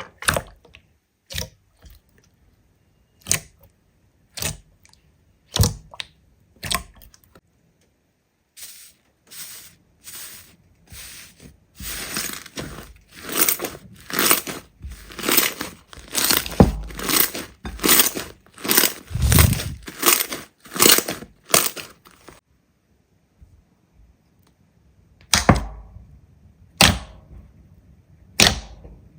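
Slime being worked by hand, making sharp clicking pops. The pops come about once a second at first, then a dense run of crackling pops for about ten seconds, a pause, and a few more pops near the end.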